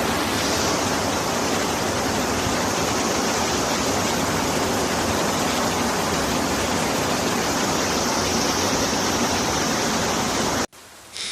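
Steady rush of fast-flowing water, an even hiss with no breaks, cutting off suddenly near the end.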